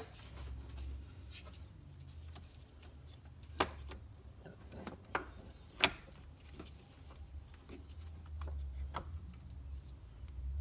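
Scattered short clicks and knocks of a plastic-and-metal battery terminal connector being handled and pushed onto the positive post of a 12-volt car battery, two sharper clicks standing out near the middle, over a steady low hum.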